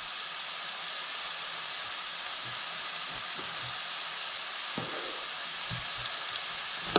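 Sliced mushrooms frying in a pan: a steady sizzle, with a few soft knocks in the second half.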